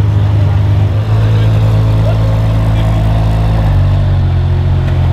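Ferrari 599 GTO's V12 engine idling just after start-up, a steady deep note that changes a little about two-thirds of the way in.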